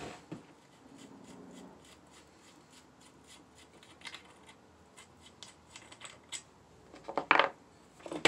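Light clicks and scrapes of the side cover being unfastened and taken off a Holzfforma G660 chainsaw, with a louder clatter about seven seconds in.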